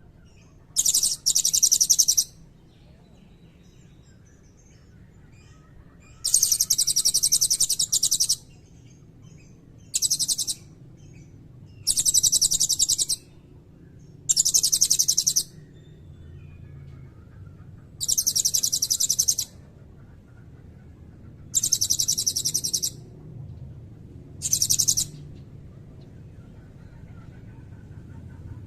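Blue-crowned hanging parrot (serindit) calling. It gives shrill, very high-pitched rapid trills in about eight separate bursts, each lasting up to two seconds, with pauses between them.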